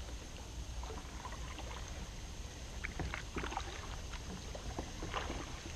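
Kayak paddle strokes in calm water: the blades dip, splash softly and drip, with small clusters of splashes about three seconds in and again near the end, over a low steady rumble.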